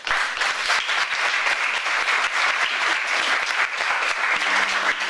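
An audience applauding: dense hand-clapping that breaks out all at once and carries on at an even level.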